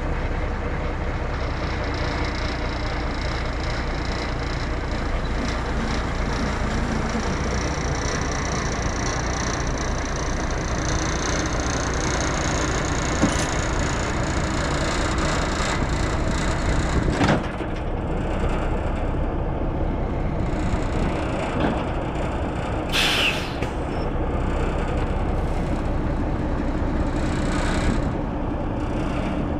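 A 1964 Kenworth self-loading log truck's diesel engine running steadily as the truck backs up to its trailer. There is a knock partway through and a short, sharp burst of air hiss from the air brakes.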